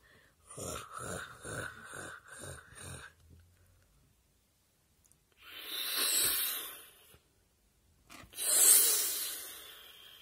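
A person's voice making about five short breathy pulses, then two whooshing swells that each rise and fade, the second louder, as a toy dragon is swooped through the air.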